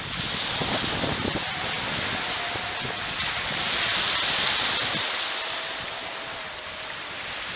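Surf breaking and washing up a sandy beach, with wind buffeting the microphone. The wash swells to its loudest about four seconds in, and the wind rumble is strongest in the first second or two.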